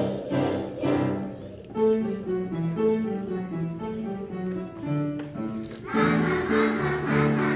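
A group of young children singing together over a musical accompaniment. The voices thin out for a few seconds in the middle while the accompaniment carries on, then the group comes back in strongly near the end.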